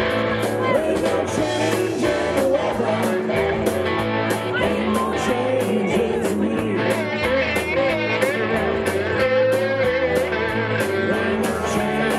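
Live Southern rock band playing with electric guitars over a steady drum beat and cymbals, with wavering held notes in the second half.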